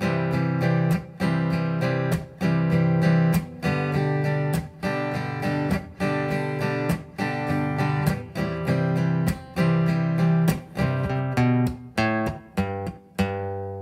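Acoustic guitar strummed in a steady rhythm, switching between C-over-G and G chords, then near the end a short single-note riff picked on the bass strings.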